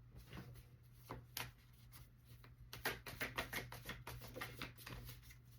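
Tarot cards being shuffled by hand: a few scattered card flicks, then a quick run of soft card snaps in the middle, over a faint steady low hum.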